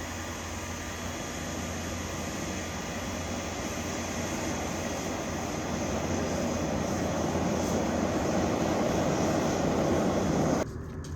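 Hair dryer blowing air into a small wood-fired forge: a steady rushing noise with a faint hum. It grows louder, then cuts off suddenly near the end.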